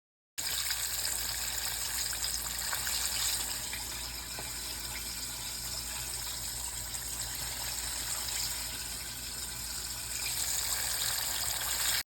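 Hot oil sizzling and bubbling steadily as a turkey deep-fries, a continuous hiss flecked with fine crackles, starting and stopping abruptly.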